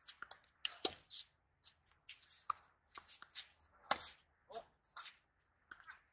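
Tennis rally on a hard court: sharp racket strikes and ball bounces a second or so apart, mixed with quick shoe scuffs and scrapes on the court surface.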